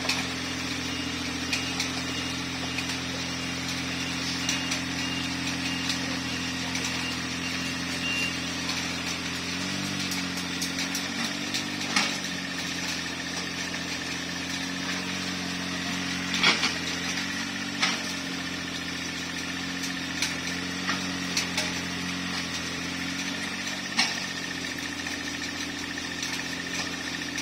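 Mini excavator's diesel engine running steadily as it digs, its note shifting about ten seconds in, with a few sharp knocks from the work.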